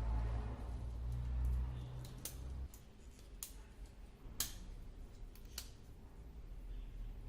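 A low hum for the first couple of seconds, then half a dozen sharp, light clicks at uneven intervals, typical of small metal parts of an oil lantern being handled and fitted.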